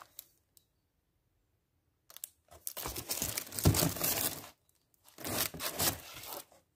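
Plastic-wrapped, card-mounted artworks being handled in a cardboard box: cellophane crinkling and card sliding against card, in two bouts after a quiet start, with a single thump partway through the first.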